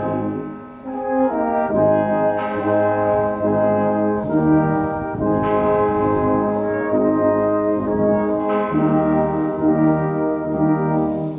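Brass band playing a slow piece in long held chords that change every second or two, with a short break in the sound about a second in.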